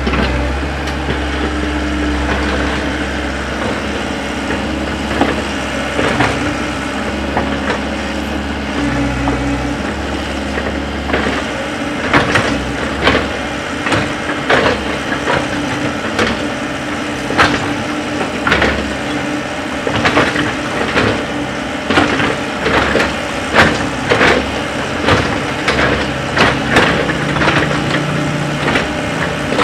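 Komatsu wheeled excavator's diesel engine running steadily under hydraulic load, its pitch shifting a few times as the arm and swing work. From about twelve seconds in, the bucket digs into stony earth with repeated sharp scraping knocks and crunches, several a second.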